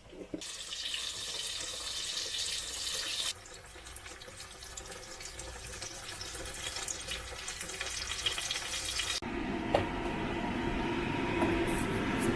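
Running water: a steady rushing noise that changes abruptly about three seconds in, drops quieter with small ticks, and about nine seconds in gives way to a louder, deeper rush.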